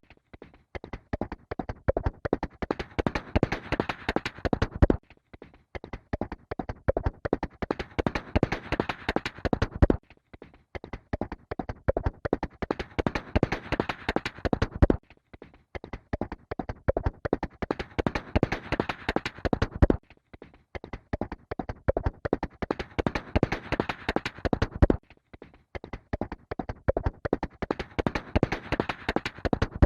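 Horse galloping: rapid hoofbeats that grow louder toward the middle of each five-second stretch, then cut off abruptly and start again, a loop repeated six times.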